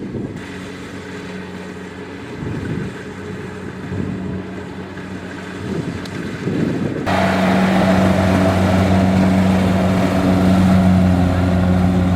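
Kubota DC-70 rice combine harvester's diesel engine running steadily, turning abruptly louder and fuller about seven seconds in, with a strong steady hum and more hiss.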